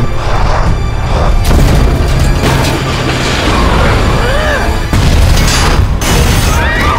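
Movie sound mix of a derailing passenger train: deep booms of an explosion and the carriage grinding along the rails, with short high squeals of metal, under a music score.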